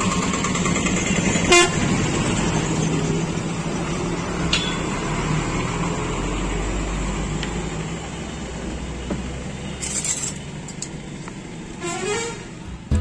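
Busy road traffic: vehicle engines running in a steady low din, with occasional brief horn toots.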